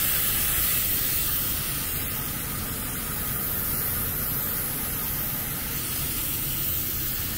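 Refrigerant hissing steadily out of the loosened fitting on the piston (metering device) housing of an air-conditioning coil, as the small pressure left in the system vents to atmosphere. The hiss starts suddenly and stays even.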